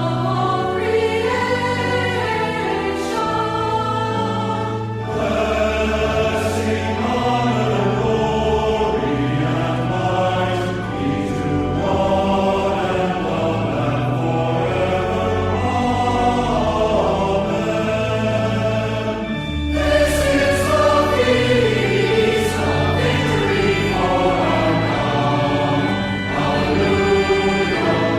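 A choir sings a hymn over an accompaniment that holds low, sustained notes. The singing pauses briefly between phrases, about five seconds in and again near twenty seconds.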